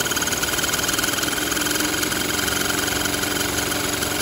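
Narrow-fabric needle loom weaving tape, running with a fast, even mechanical clatter as its speed is raised gradually by an inverter drive. A steady hum joins the clatter about a second and a half in.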